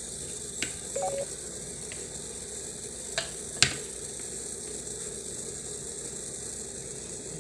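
Hot broth hissing in an electric rice cooker's pot, with a few sharp clicks and knocks against the pot; the loudest click comes about three and a half seconds in.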